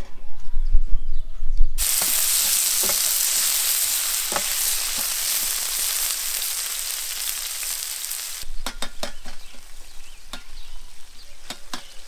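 Chopped peppers and onion sizzling in a paella pan on a gas burner, with a metal spatula scraping and clicking against the pan. The sizzle comes in loud about two seconds in, after some low knocks, and drops away about eight seconds in, leaving scattered clicks of the spatula.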